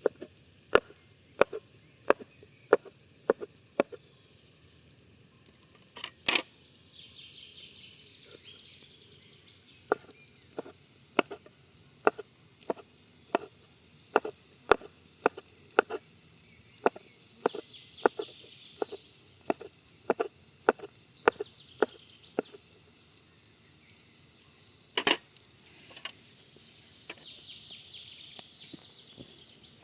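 A knife chopping vegetables on a cutting board in steady, even strokes, about three every two seconds, in two runs. There are two louder knocks between the runs and a few short spells of faint high hiss.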